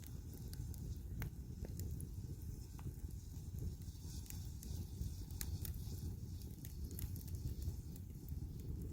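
Korean pine wood campfire burning, crackling with scattered sharp pops over a low steady rumble.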